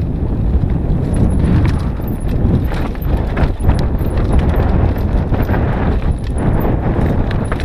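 Mountain bike descending a rough dirt singletrack: tyres running over dirt and stones and the bike clattering with many irregular knocks over the bumps, over a steady low rumble of wind on the GoPro's microphone.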